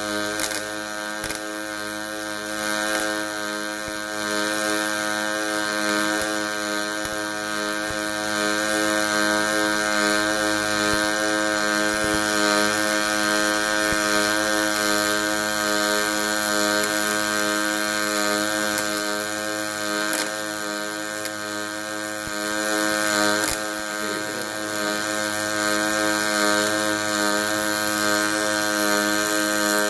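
Hydraulic cylinder welding machine running: a steady mechanical hum with many even overtones over a hiss, with scattered faint clicks.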